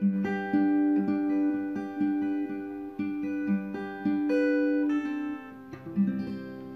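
Background music: a plucked guitar melody, with a last chord struck about six seconds in and left ringing.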